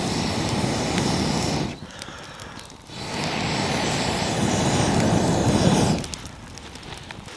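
Air blown through a fire tube into the campfire's embers, rushing and fanning the flames to bring the billy can to the boil: two long blows with a short pause for breath between, the second about three seconds long.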